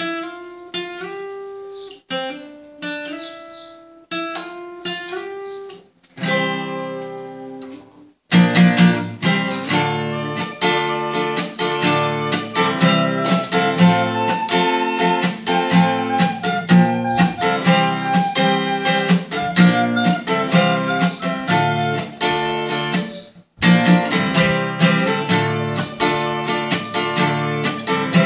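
Acoustic guitar playing: at first, picked notes that ring and fade in short two-second phrases, then a strummed chord. From about eight seconds in it becomes a fuller, continuous passage, which stops briefly near the end and starts again.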